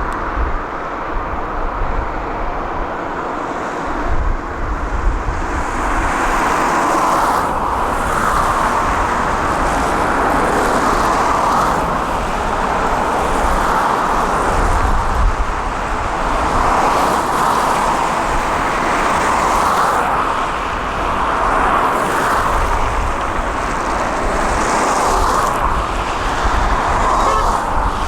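Diesel excavator engine running under working load, its note swelling and easing every couple of seconds as the hydraulics take the strain. A low rumble and irregular low thumps sit underneath.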